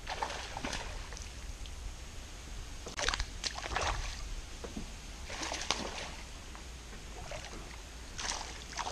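Water splashing and small knocks on and around an aluminium jon boat, in four short bursts over a faint steady low rumble.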